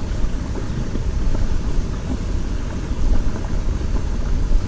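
Steady, gusting low rumble of wind buffeting the microphone, with no clear event standing out.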